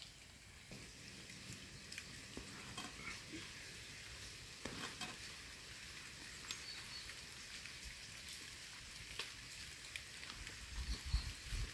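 Faint steady hiss with scattered light clicks and taps as tea glasses and bread are handled, and a few low thumps near the end.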